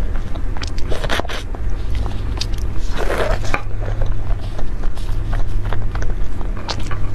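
Close-miked eating of a soft pink cream-filled mochi dessert: wet mouth clicks and smacks, squishy bites and chewing, with a louder bite about three seconds in. A steady low hum runs underneath.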